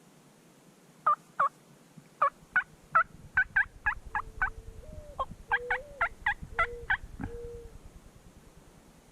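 Wild turkey calling: a long run of short, falling yelps at about three a second, starting about a second in and stopping near seven seconds.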